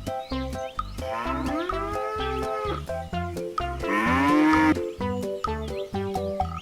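A cow mooing twice over background music with plucked notes: one long moo, then a louder, shorter one that rises in pitch.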